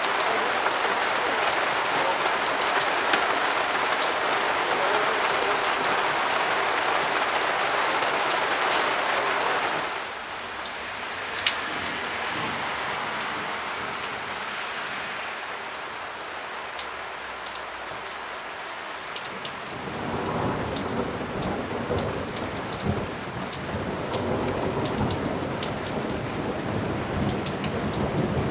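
Heavy thunderstorm rain pouring down, with sharp drop ticks spattering on nearby surfaces. The rain noise drops suddenly about a third of the way in, and a low rumble of thunder builds in the last third.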